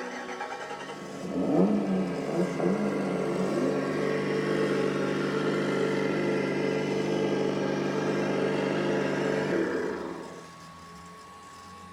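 Simulated car engine sound from an RC car's sound module, played through its small onboard speaker: it starts up suddenly, revs a few times about a second and a half in, settles into a steady idle, then winds down near the end, leaving a faint hum.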